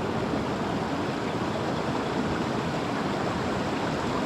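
Steady rushing of flowing river water, an even wash of noise with no distinct events.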